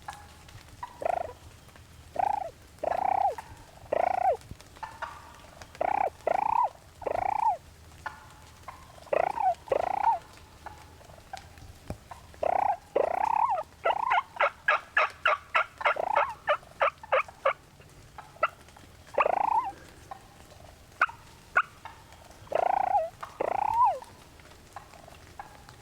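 Wild turkey calling up close: short rising-and-falling notes in groups of two or three, with a fast run of sharp notes, about eight a second, in the middle.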